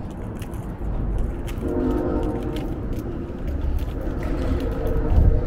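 A distant horn sounding two held blasts of about a second each, a chord of several tones, over a steady low rumble.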